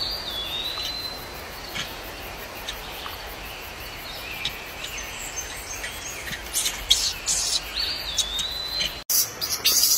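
Outdoor forest ambience: a steady hiss, with a bird's whistled call that rises and then holds one high note for about a second, heard twice, at the start and again about eight seconds in. A few light clicks come in the middle, and about nine seconds in the sound cuts abruptly to a louder, rougher noise.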